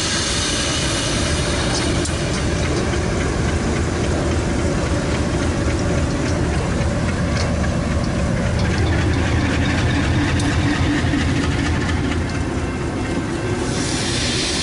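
General Electric B23-7 diesel locomotives' engines running as the train rolls slowly by at close range. The low engine throb grows strongest about nine seconds in.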